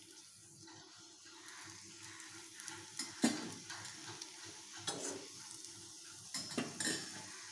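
A small piece of dough sizzling faintly in hot oil in a kadai, showing that the oil is hot enough for frying. A steel slotted spoon clinks sharply against the pan a few times, about three and five seconds in and again near the end.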